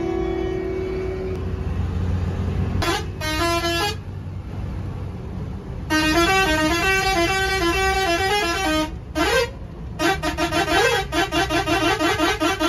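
A bus's musical horn sounding stepped multi-note tunes over the low drone of the engine and road: a short tune about three seconds in, a longer one from about six to nine seconds, then rapid repeated blasts near the end.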